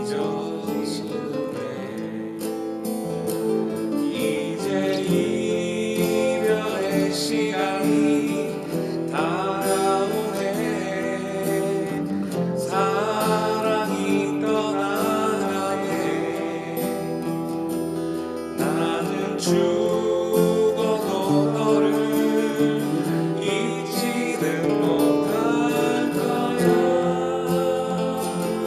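Acoustic guitar, a Crafter, playing a lead melody over sustained chords, with a man singing along.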